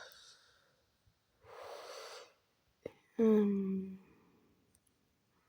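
A person breathes out audibly, then after a small click makes a short drawn-out wordless 'uhh' with a slightly falling pitch.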